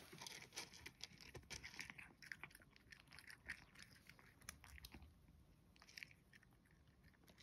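Cat crunching dry kibble from a bowl: faint, irregular crunching, busiest in the first few seconds and sparser toward the end.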